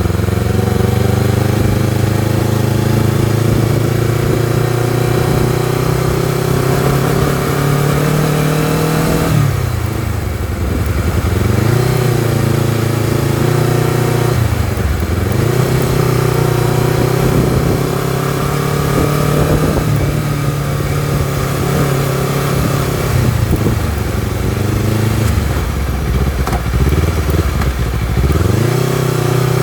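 Honda CBR250RR parallel-twin engine and exhaust under load on a ride, pulling at steady revs with the revs dropping and climbing again three times, around a third of the way in, near the middle and near the end.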